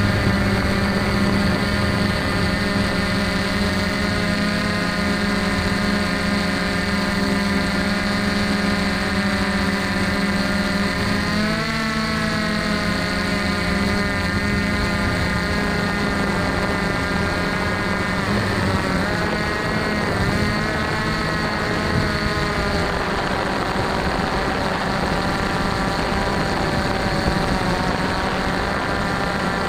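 DJI F550 hexacopter's six brushless motors and propellers whirring in flight, heard up close from a camera on the frame. It is a steady hum of several tones whose pitches waver and bend about twelve seconds in, and again around twenty seconds in, as the motors change speed.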